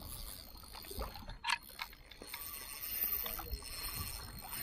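Ryobi HPX 1000 spinning reel being cranked on a lure retrieve, a light mechanical whir with a few small clicks, over small waves lapping against shore rocks.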